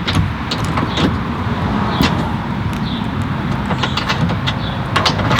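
Scattered short metallic clicks and knocks as a screw-in tow-hook license plate bracket is tightened snug into the car's front bumper, over a steady background rumble.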